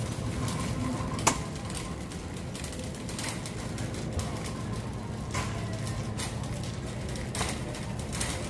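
Wire shopping cart being pushed across a concrete store floor, its basket and wheels rattling. There is one sharp clack about a second in and softer clicks every two seconds or so, over a steady low hum.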